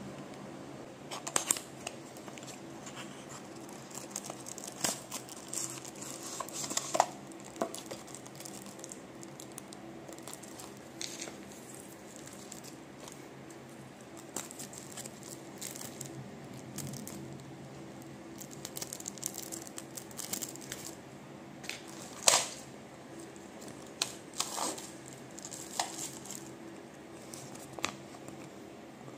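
Hands unpacking a small diecast model bus: a cardboard box, a crinkly clear plastic bag and a folded paper leaflet being opened. The result is scattered rustles, crinkles and clicks, with one sharp snap about two-thirds of the way through. A low steady hum runs underneath.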